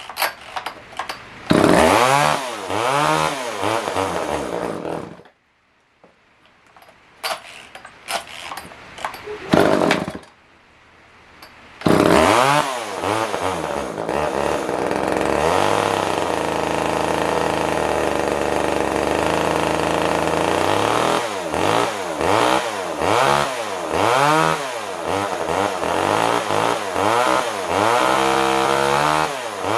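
Small two-stroke engine of a Poulan Wood Shark chainsaw revving unevenly, then dying about five seconds in as it leans out. After some seconds of quiet and a few sharp knocks it starts again about twelve seconds in, runs steadily, then is revved in repeated blips. It will only run on choke because its carburettor is not drawing enough fuel, which the owner thinks needs a carb kit.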